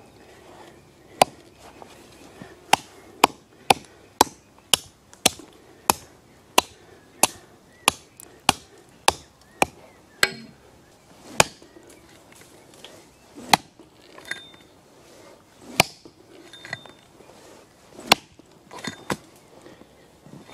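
Blunt axe chopping into a plum tree stump: a run of sharp strikes about two a second, then slower, irregular blows through the second half.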